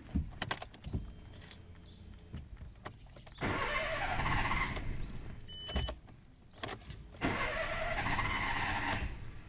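Starter motor cranking the VW Polo engine twice, about a second and a half each time, with the spark plugs removed, to check the ignition coils; a short high beep follows each crank.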